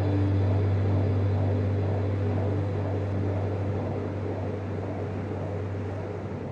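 A steady low rumble over a deep, constant hum, slowly fading out.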